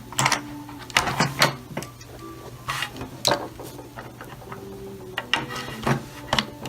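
Small hard objects being handled on a work surface: a string of irregular clicks and knocks over a steady low hum.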